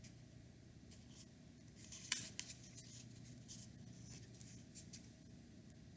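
Faint light taps and scrapes of small glued wooden pieces being handled and pressed back into place, the sharpest tick about two seconds in, over quiet room tone.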